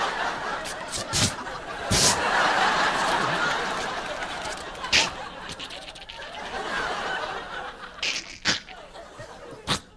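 Studio audience laughing, the laughter swelling about two seconds in and slowly dying down, with a few short sharp clicks or pops scattered through it.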